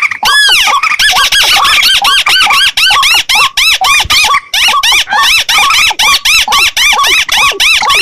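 Mixed recording of paddy-field waterbird calls used as a hunting lure: dense, overlapping squeaky calls, each note rising and falling in pitch, several notes a second with only brief breaks.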